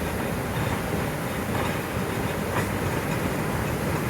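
Flash floodwater rushing down an arroyo and across a road: a steady, heavy, unbroken rush of water.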